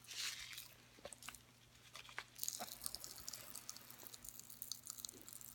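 Pop Rocks popping candy crackling in an open mouth: a faint, rapid scatter of tiny pops and snaps, thickest from about two seconds in, after a short hiss as the candy is tipped in at the start.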